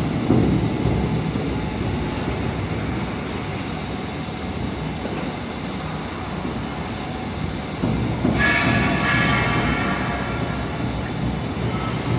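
Steady low rumble of construction-site background noise, with a brief high squeal about eight seconds in that lasts under two seconds.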